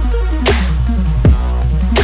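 Electronic dance music with a heavy sustained bass, pitch-sliding synth lines and a drum hit about every three quarters of a second.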